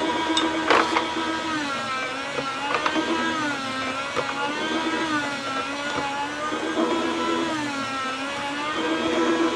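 Electric meat slicer's motor running with a steady hum, its pitch sagging and recovering about every two seconds as each pass of cured pork belly loads the blade. A sharp knock about a second in.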